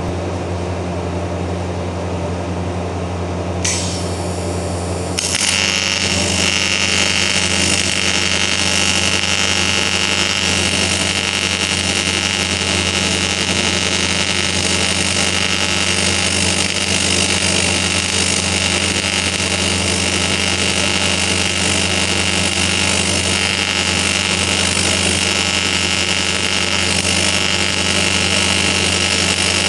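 Hobart Beta-Wave BW 320 AC/DC TIG welder humming at rest, then a brief high-pitched hiss about four seconds in as the arc is struck, followed about a second later by the steady buzz of the AC TIG arc with a high whine as cast aluminium is welded.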